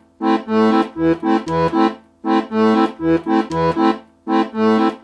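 A short bouncy tune of quick detached notes and chords over alternating low bass notes, played in phrases of about two seconds with brief pauses between them.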